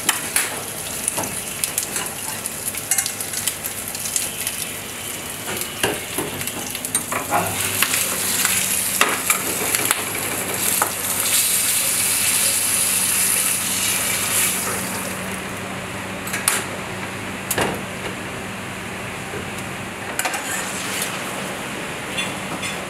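Pigeon breast sizzling in a frying pan, with repeated clinks and scrapes of a metal spoon against the pans. The sizzling dies down about two-thirds of the way through, leaving scattered clinks.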